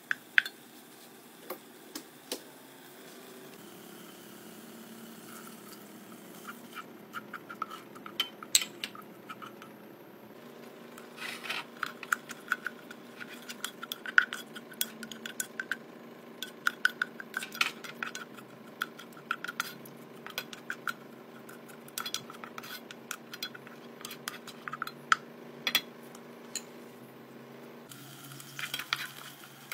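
A spatula stirring chilli sambal in a saucepan, clicking and scraping against the pot in quick, irregular strokes. The clicks come thicker from about a third of the way in. A steady low hum runs underneath.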